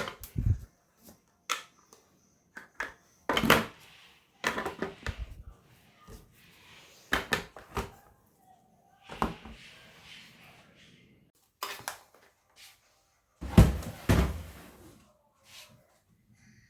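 Kitchen items and cupboard fittings being handled: a run of irregular knocks, clicks and clatters, with heavier thuds about three and a half seconds in and again around fourteen seconds.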